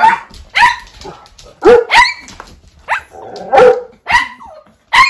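Small dog barking excitedly: about eight sharp, high-pitched yaps at uneven intervals.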